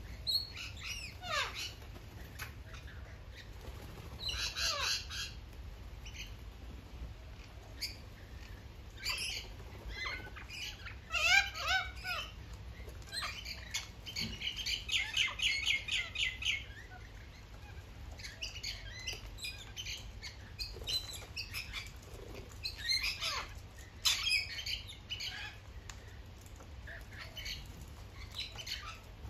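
Rainbow lorikeets and little corellas screeching and chattering, with short shrill calls and falling squeals scattered throughout and a run of rapid chatter lasting about two seconds midway. Wings flap as birds come and go.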